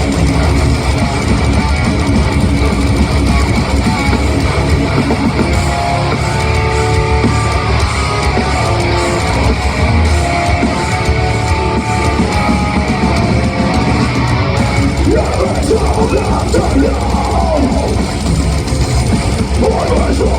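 Heavy metal band playing live, loud and dense: distorted electric guitars, bass and drum kit, with a picked guitar melody standing out in the middle and wavering lines from about fifteen seconds in.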